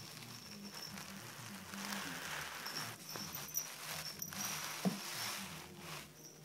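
Kittens scuffling and scampering on carpet as they bat at a string wand toy: soft rustling and pattering that swells in the middle, with two sharp knocks about three and a half and five seconds in.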